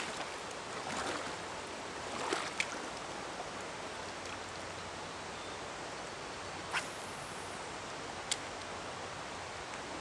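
Shallow river flowing over rocks, a steady rushing hiss, with a few brief faint clicks.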